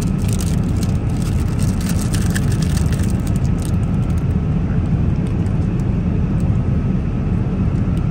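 Steady low roar of an Airbus A350's cabin in flight, the engine and airflow noise heard from an economy seat. In the first few seconds it carries light clicks and rustles from the foil lid and plastic tray of an in-flight meal being handled.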